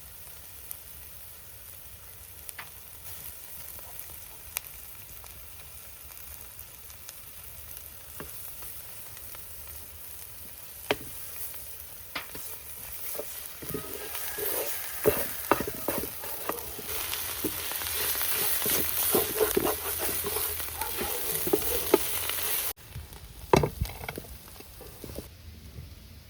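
Food frying in a pan, sizzling and crackling with scattered knocks of a utensil stirring it. The sizzle starts faint, grows loud about halfway through, and cuts off suddenly near the end, leaving a few knocks.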